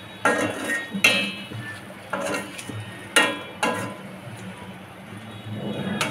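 Slotted spatula scraping and knocking against a stainless steel wok while stirring prawns in masala: about six sharp strokes, each with a brief metallic ring.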